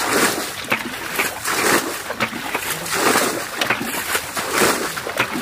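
Muddy water splashing again and again as a plastic bucket scoops it from a shallow ditch and flings it out, bailing the ditch dry.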